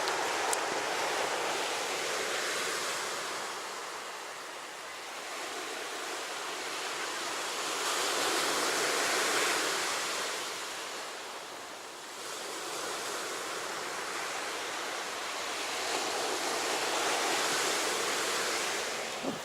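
Sea waves breaking and washing on the shore. The noise swells and fades in slow surges, about every eight or nine seconds.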